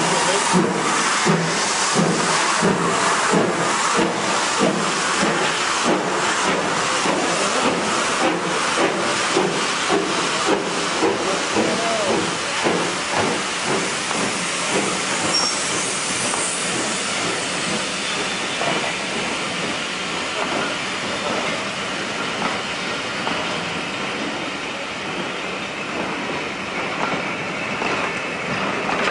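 BR Standard Class 4 4-6-0 steam locomotive 75014 pulling away with a train. Its exhaust beats rhythmically, with steam hissing from around the cylinders. After about twelve seconds the beats die away and the coaches roll past with steady wheel noise, slowly fading.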